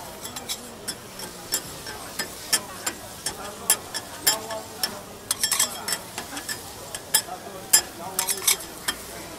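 Metal spatulas clacking and scraping on a hot flat-top griddle as giant prawns with onion and greens fry and sizzle. The clacks come at an irregular pace, in quick clusters about five seconds in and again near the end.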